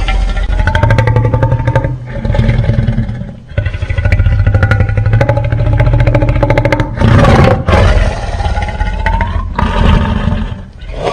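Layered giant-monster roar sound effects: a run of long, growling roars over a deep rumble, their pitch sliding up and down, each a few seconds long with brief breaks between. A harsher, noisier blast comes about seven seconds in.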